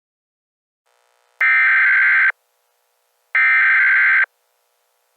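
Two bursts of Emergency Alert System SAME header data, the harsh buzzing digital tones that open an alert, each about a second long with a second's gap between them.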